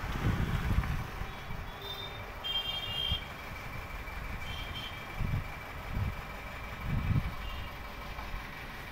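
Wind buffeting an outdoor microphone in uneven low gusts, strongest at the start and again several times in the second half. A few short, high-pitched tones sound faintly about two to three seconds in and again near five seconds.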